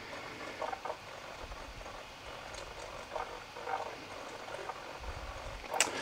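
Dell XPS 15 2-in-1 (9575) laptop's cooling fans running steadily at about 40% speed, a soft even hiss that sounds quite reasonable. A few faint taps come from a finger working the touchscreen.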